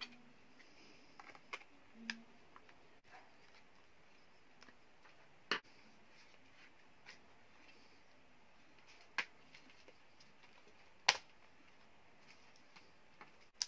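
Scattered sharp clicks and taps from a compact plastic multimeter being handled and fitted into its rubber holster. The loudest comes about eleven seconds in.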